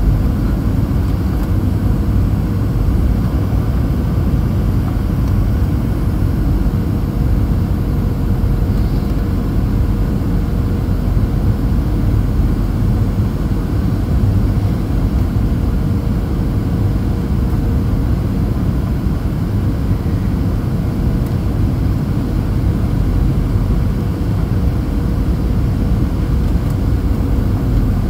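Steady roar inside the cabin of a Boeing 737-700 in flight on approach: its CFM56 engines and the rushing airflow, with a thin steady hum running through it.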